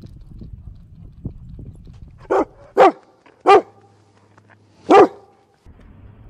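Rottweiler-type dog barking four times. Three loud barks come close together about two to three and a half seconds in, and a fourth follows about a second and a half later.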